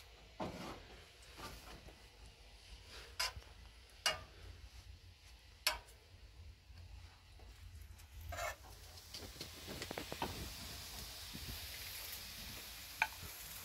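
Cubed potatoes frying in a pan of hot oil, with a few sharp knocks of the pan and potatoes going in during the first half. A steady sizzle builds from about nine seconds in as the pan fills.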